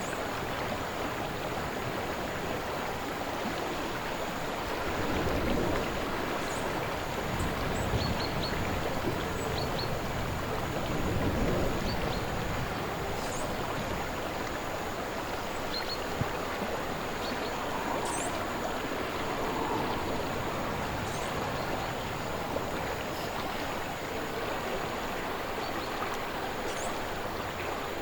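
Slow-moving river water flowing steadily, with low swells about five and eleven seconds in, and a few faint short high chirps scattered through.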